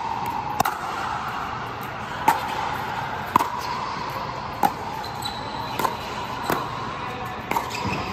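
Pickleball rally: paddles strike the plastic ball in sharp knocks about once a second, seven in all, each with a short ring, over a steady background noise.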